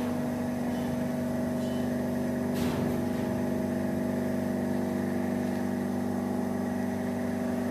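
A machine running steadily: an even hum held at one pitch, with a single light click about a third of the way through.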